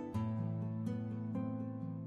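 Soft instrumental background music of plucked strings, a new note sounding about every half second.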